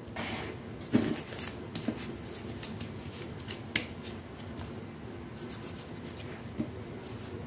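Serrated knife slicing ripe tomatoes held in the hand over a metal bowl: quiet cutting noises with scattered soft clicks, the sharpest about a second in and near four seconds in.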